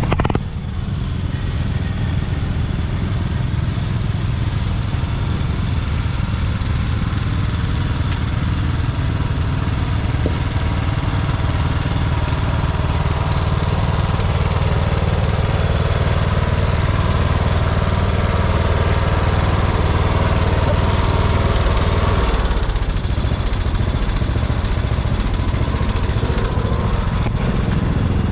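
An engine running steadily at low speed, its note changing about twenty-two seconds in.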